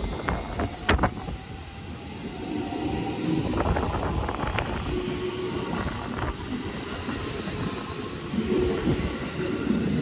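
JR West 223 series 2500 electric train pulling away and running past, with a steady rumble, a rising whine about two seconds in, and wheels clicking over rail joints as the cars pass. Strong wind buffets the microphone.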